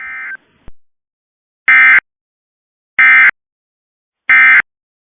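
Emergency Alert System end-of-message data tones: three short, loud, buzzy digital bursts about a second and a half apart, marking the end of the alert. A softer short burst and a click come first.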